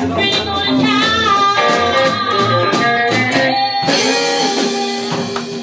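Live band of electric archtop guitar, drum kit and upright bass playing a guitar-led passage. About four seconds in the drums stop and a closing chord is held and rings out.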